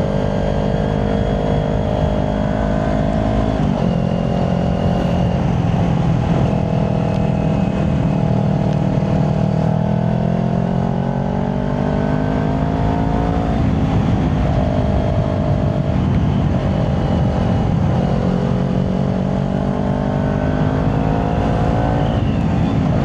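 Kawasaki Ninja 400 parallel-twin with a Yoshimura exhaust, running under way at a fairly steady engine speed. The note steps in pitch a few times and climbs slowly for a few seconds around the middle before dropping back.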